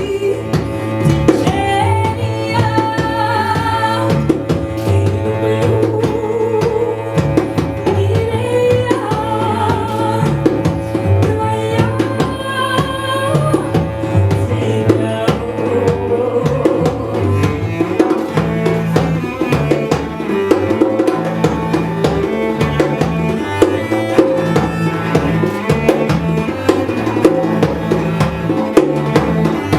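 Ethno music played live on djembe, two cellos and a woman's voice. The hand drum keeps a dense, fast pattern throughout, under the cellos, and the voice sings over them for roughly the first half.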